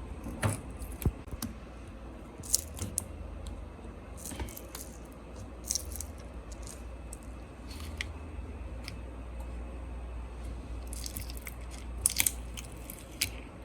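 Scattered small clicks, taps and light scrapes of hand tools and small parts handled at a phone repair bench, with a cluster of rapid clicks near the end, over a low steady hum.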